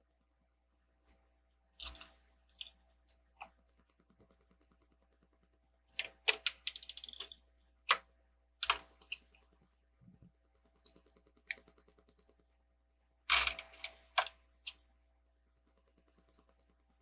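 Plastic Lego bricks and tiles clicking and clattering as they are handled and pressed together, in scattered clusters of sharp clicks with a quick rattle of pieces about six seconds in.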